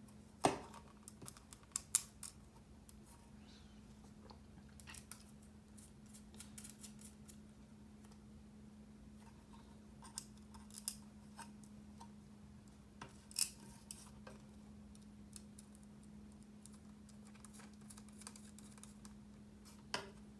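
Small sharp clicks and light scrapes of keyboard parts being handled during a 40% mechanical keyboard build, coming irregularly with the loudest about half a second in, around two seconds and around thirteen seconds, over a steady faint low hum.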